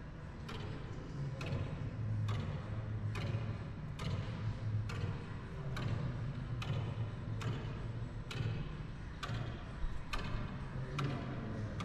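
Footsteps on a hard gallery floor, a sharp click a little under once a second at an uneven walking pace, over a steady low hum of building ventilation.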